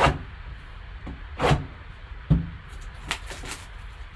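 Cardboard trading-card box handled on a table: a few separate knocks and scuffs as it is lifted, tipped over and set down, the sharpest about two seconds in.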